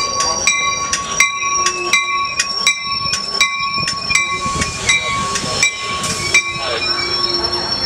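Amtrak Pacific Surfliner train pulling slowly into the station past the platform, its bell ringing at about three strokes a second over the rumble of the cars. The bell stops about six and a half seconds in.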